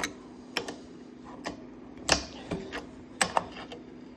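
Adjustable wrench working on the coupler fitting of an air compressor tank: a series of irregular sharp metal clicks and knocks, the loudest about two seconds in. A faint steady hum runs underneath.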